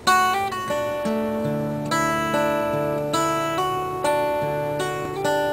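Background music: a plucked string instrument strumming chords that ring and fade, a new chord about every second.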